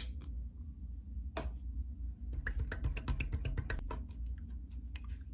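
Slime being squished and poked: a sharp click at the start, another about a second and a half in, then a dense run of small wet clicks and pops.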